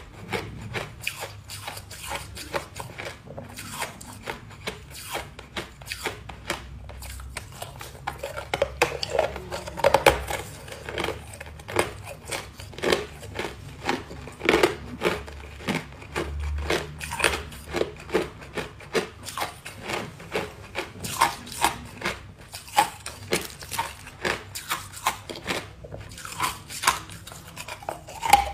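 Ice cubes being bitten and crunched between the teeth: a long run of sharp, irregular cracks, several a second.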